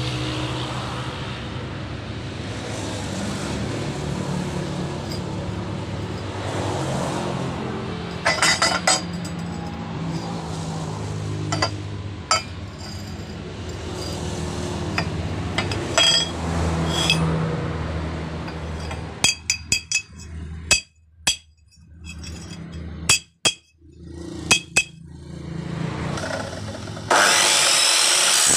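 Steel pipe clinking and knocking against a steel angle-iron channel as it is handled, over a steady low hum, then a quick run of sharp clicks. Near the end an abrasive chop saw starts up loud and runs.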